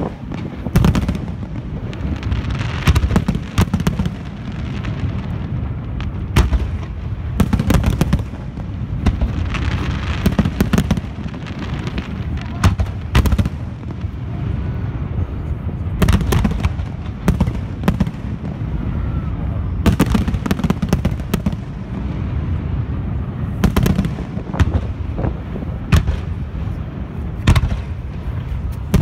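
Aerial firework shells bursting overhead in quick succession, a sharp boom or crack every second or two over a steady low rumble.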